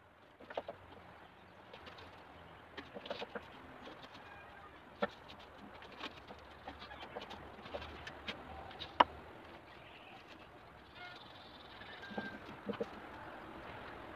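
Scattered knocks and taps against a wooden speaker box cabinet as hands work inside it; the sharpest knock comes about nine seconds in. A bird calls in the background.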